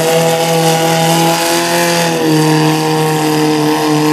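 Small garden pulling tractor's engine running at high, steady revs while it drags a weight-transfer sled, its pitch dipping slightly about two seconds in.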